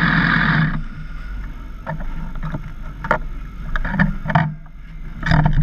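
Motorcycle engine idling, then switched off about a second in; after it cuts out, only scattered knocks and clicks, with a louder clunk near the end.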